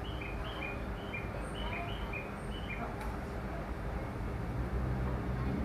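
A string of short, high bird chirps alternating between two pitches, about a dozen over the first three seconds, over a steady hum. A low rumble builds near the end.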